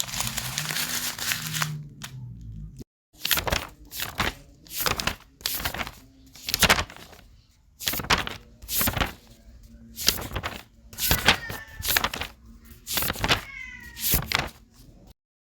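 A series of sharp knocks, roughly one a second, with meowing calls twice near the end.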